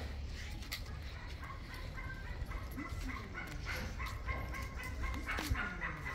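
Dogs barking in quick repeated yaps, thickest from about a second and a half in onward; the dogs are worked up and excited.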